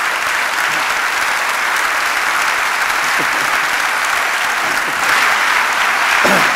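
Audience applauding steadily in a concert hall, growing a little louder about five seconds in.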